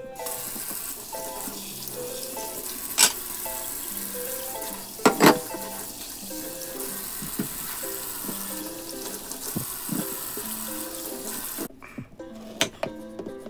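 Tap water running into a stainless steel sink as peeled carrots are rinsed under it, with a few sharp knocks. The water stops near the end, followed by a few clicks of a knife cutting carrot on a wooden cutting board.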